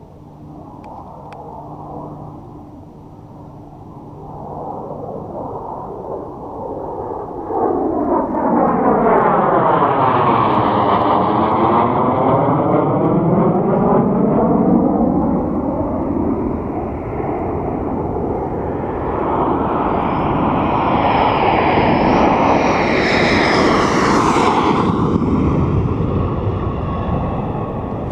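Military jet aircraft passing, its engine noise swelling from about four seconds in and staying loud, with sweeping changes in tone as it goes by. Near the end a high turbine whine rises and falls.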